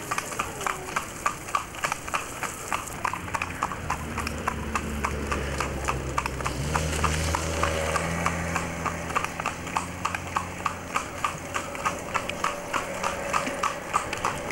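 New Forest pony's hooves trotting on a tarmac lane, a steady clip-clop of about four beats a second. In the middle a motor vehicle's engine hum swells and fades under the hoofbeats.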